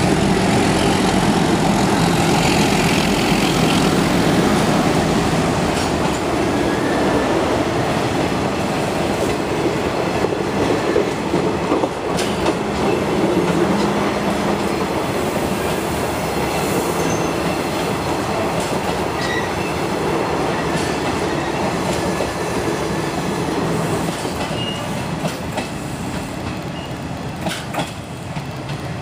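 Passenger coaches of a train hauled by a pair of ALCo YDM4 diesel locomotives rolling past and pulling away, a steady rumble of wheels on rail with occasional sharp clicks, slowly fading as the train recedes.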